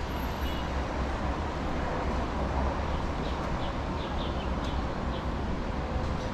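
Steady city street background: a low rumble of traffic with a few short, high chirps about halfway through.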